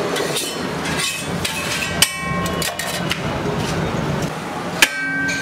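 Metal spatula scraping and knocking on a flat iron griddle (tawa). There are repeated clicks and two sharp ringing clanks, about two seconds in and near the end.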